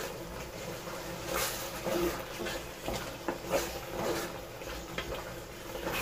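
Wooden spoon stirring a thick tomato-and-pepper stew base frying in a pot, no water added yet: uneven scraping strokes, about two a second.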